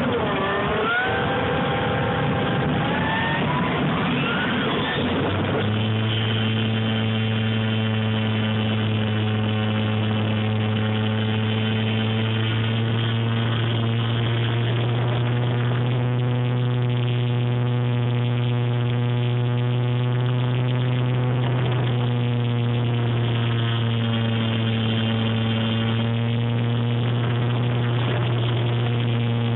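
Electric motor and four-blade propeller of a Dynam Corsair RC model plane, heard from its onboard camera: for the first few seconds the pitch sweeps up and down with throttle changes, then about six seconds in it settles into a steady drone at constant throttle.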